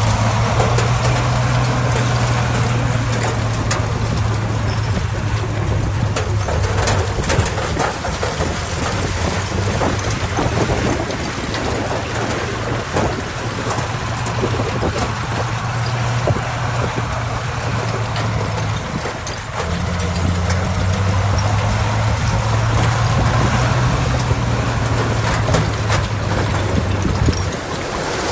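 Diesel engine of heavy earthmoving machinery running steadily under load, with scattered sharp clanks. Its hum eases briefly about two-thirds of the way through, then comes back.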